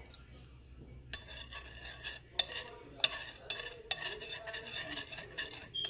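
A utensil stirring unflavoured gelatin into water in a bowl, dissolving it so no lumps remain. It starts about a second in as a run of quick, irregular scraping and clicking strokes against the bowl.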